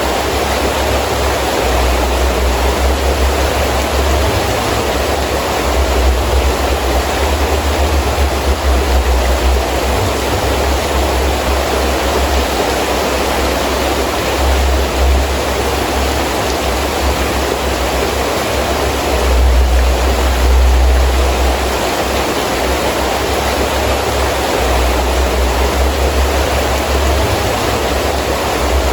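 Heavy rain falling steadily, with wind gusting in a low rumble that swells and fades, strongest about two-thirds of the way through.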